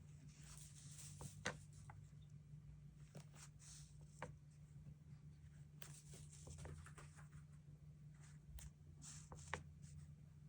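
Faint desk sounds of handling a paper planner and stationery: soft paper rustles and a few light clicks or taps, the sharpest about a second and a half in and again near the end, over a low steady hum.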